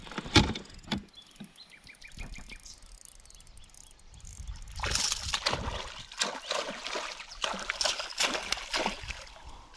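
Hooked northern pike thrashing and splashing at the surface as it is brought beside an inflatable boat and scooped into a landing net; the splashing starts about halfway through and goes on, irregular, to the end. A few sharp knocks come in the first second.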